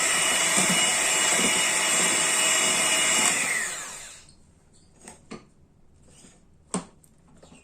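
Electric mixer whisking egg whites for meringue to stiff peaks. It runs steadily, is switched off about three seconds in and winds down with a falling whine, followed by a few light knocks.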